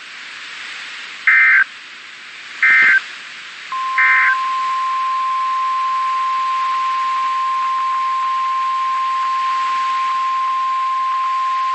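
Three short Emergency Alert System SAME digital data bursts, about a second and a half apart, of the length of the end-of-message code that closes a weather radio alert. About four seconds in, the steady 1050 Hz NOAA Weather Radio warning alarm tone starts and holds.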